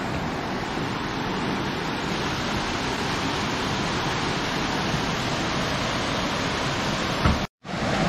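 Shallow stream water rushing steadily over rocks at a small cascade. The sound cuts out for a moment shortly before the end.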